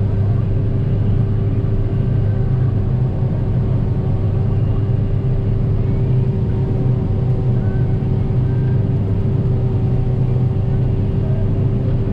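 Hillside-leveling combine harvester running steadily while cutting wheat, heard from inside the cab: a constant low drone with a steady hum over it.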